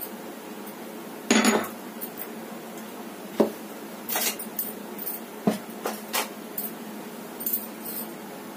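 Steel kitchen containers and utensils clinking and knocking against each other and the counter. A loud clatter comes about a second and a half in, followed by a string of lighter clinks and taps over a steady background hiss.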